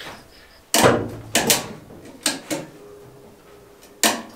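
Ratchet strap being cranked tight by hand, its ratchet clicking in a handful of sharp bursts about a second apart, with the strap under heavy tension.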